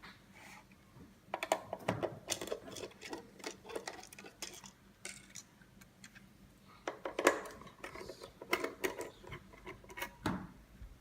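Irregular small clicks and clinks as screws are taken out of a car display's metal and plastic housing and the parts are handled, with louder clinks about seven and ten seconds in.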